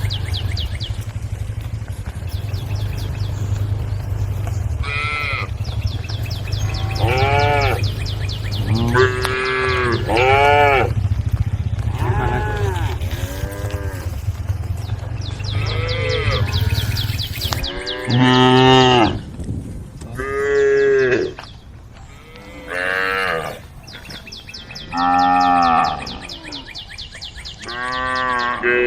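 Cattle mooing repeatedly: about a dozen separate calls, some short and some long, the loudest coming in the later part. A steady low hum and a fine high buzzing lie underneath and stop about two-thirds of the way through.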